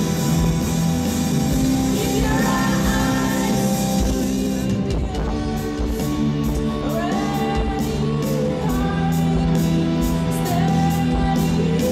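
Live rock band playing: a female lead singer over electric guitars, bass guitar and drums. About five seconds in, the cymbal wash drops away and a steady tapping beat carries on under the voice.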